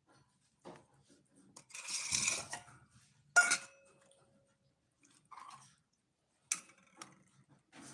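Cats chewing food from stainless steel bowls, with sharp metal clinks against the bowls, the loudest about three and a half seconds in, ringing briefly, and another about six and a half seconds in.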